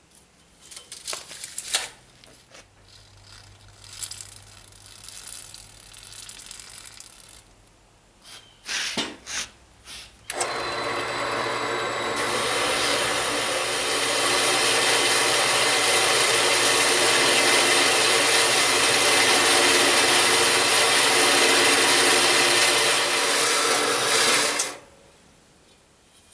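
Portable metal-cutting bandsaw: a few knocks over the motor's low hum, then about ten seconds in the blade bites into a steel pipe with a loud, steady grinding rasp that lasts about fourteen seconds and stops abruptly near the end as the cut finishes.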